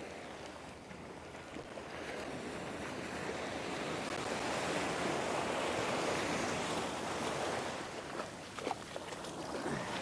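Ocean surf breaking and washing up the beach, swelling to a loud wash in the middle and easing off, with wind buffeting the microphone. There are a few brief splashes near the end.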